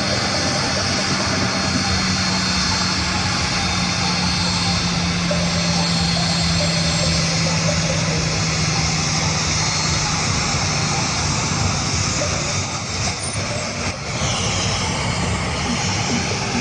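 Jet airliner engines running with a loud, steady noise and a low hum underneath that sinks slightly in pitch over the first ten seconds. The level dips briefly a little past the middle.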